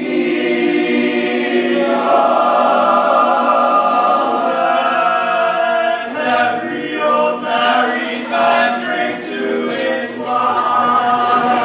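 Men's choir singing in harmony: a long held chord, then shorter chords in a rhythm from about six seconds in, and another held chord near the end.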